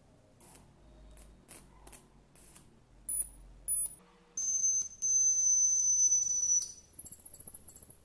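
High-pitched electronic whine from a breadboard high-voltage driver circuit powering a gas discharge in a lamp. It comes as about seven short bursts, then a loud steady two-tone whine for about two seconds once the circuit is connected, dropping to a fainter, fluttering whine near the end.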